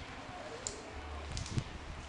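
Rustling with low wind rumble, broken by one sharp click a little over half a second in and a quick cluster of clicks near the end.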